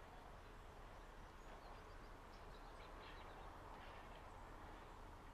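Near silence: faint steady outdoor background hiss with scattered small bird chirps.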